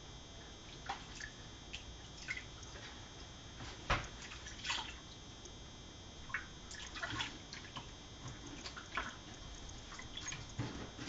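Water splashing and dripping in a stainless steel kitchen sink as a kitten is washed by hand: faint, irregular small splashes. The loudest comes about four seconds in.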